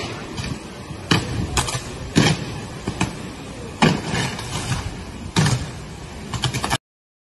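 Hurricane wind and rain with about five sharp cracks and pops, from power lines arcing in showers of sparks. The sound cuts off near the end.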